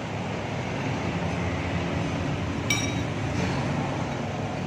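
Steady background noise of a small eatery, with one short ringing clink of tableware about two and a half seconds in.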